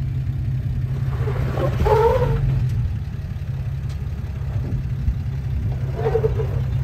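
Jeep Cherokee XJ engine running low and steady as the Jeep crawls down a steep rock ledge. Brief wavering higher-pitched sounds come about two seconds in and again near the end.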